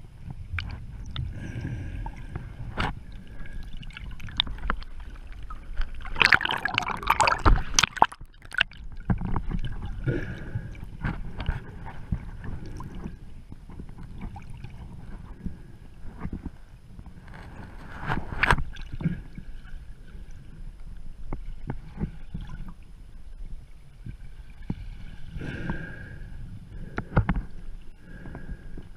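Muffled water sound from a camera held underwater while snorkelling: water sloshing and gurgling around the housing, with frequent small clicks and knocks. A louder rush of water comes about six to eight seconds in.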